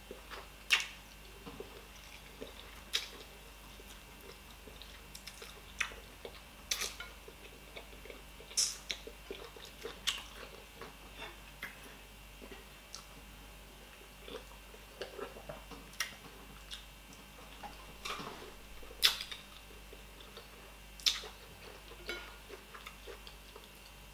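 Wet mouth sounds of someone eating soft, bony fish in soup: chewing, sucking and lip-smacking. These come as irregular short clicks and smacks, some much sharper than the rest.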